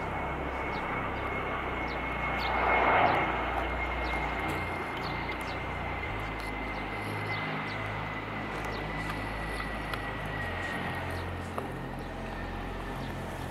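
Airbus A321 jet airliner on landing approach: engines running with a steady roar and a thin high whine that slowly falls in pitch, loudest about three seconds in.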